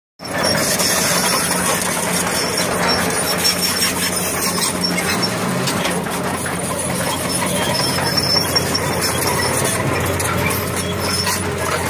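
Fiat-Hitachi FH200.2 crawler excavator travelling on its steel tracks: the diesel engine runs steadily while the tracks clank, with thin high squeaks over the top.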